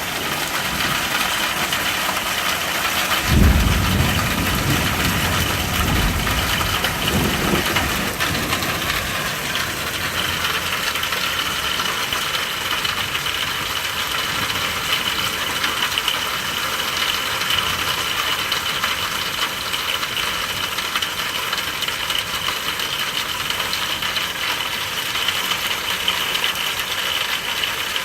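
Steady rain falling, with a roll of thunder that breaks about three seconds in and rumbles away over the next five or six seconds.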